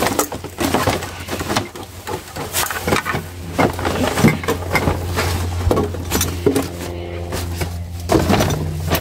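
Plastic rubbish bags and bottles rustling and crinkling, with irregular sharp clacks and knocks as a metal grabber tool rummages inside a steel dumpster. A steady low hum runs underneath.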